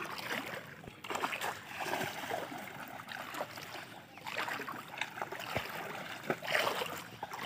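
Footsteps wading through shallow floodwater, with irregular splashes and sloshing as feet lift and drop in the water.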